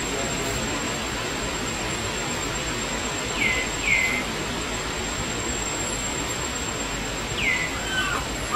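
A baby macaque giving short, high calls that fall in pitch: a pair about three and a half seconds in and two or three more near the end. Under them runs a steady hiss of background noise and a thin, steady high tone.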